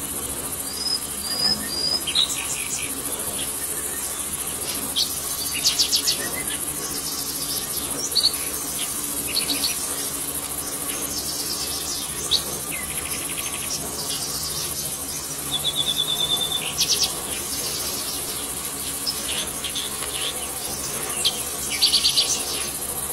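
Insects droning steadily at a high pitch, with birds calling over it in short rapid trills and whistled notes every few seconds.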